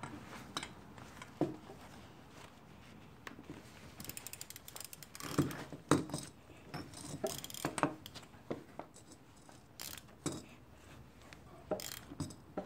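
Ratchet wrench with a hex-bit socket clicking in short runs as the adjusting screw of a roll-center adjuster is turned in a steel steering knuckle, with a few sharp knocks between the runs.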